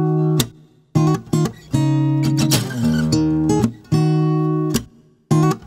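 Cutaway acoustic guitar played solo: struck chords and single picked notes with sharp attacks, broken by short full stops about a second in and again near the end, with a hard strummed chord near the middle.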